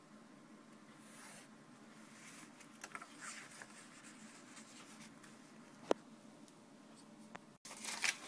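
Pencil scratching faintly across card as lines are drawn along a metal ruler, with a single sharp click about six seconds in. Near the end, after a brief dropout, louder handling of the paper sheets.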